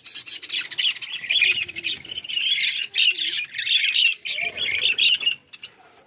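A flock of budgerigars chattering, a dense run of high chirps and calls that thins out about five and a half seconds in.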